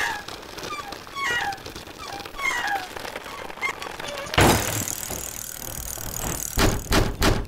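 Sound effects for an animated channel logo: short falling chirps repeat about once a second, then a sudden loud rushing noise starts about four and a half seconds in, ending in a few sharp hits near the end.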